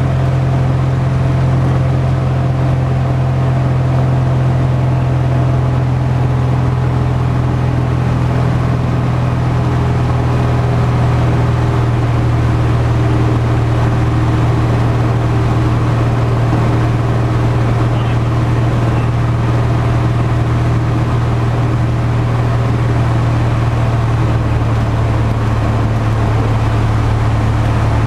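Cessna 170's six-cylinder engine and propeller droning steadily, heard from inside the cabin in flight; the engine note drops slightly in pitch about ten seconds in.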